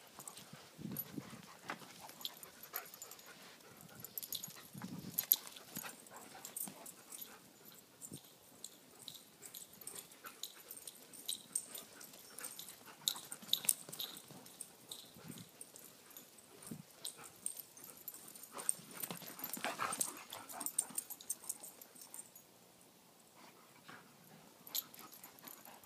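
Alaskan Malamutes play-fighting: scattered short dog vocalizations mixed with scuffling and brief sharp sounds of the dogs tussling, with a louder patch of activity about twenty seconds in.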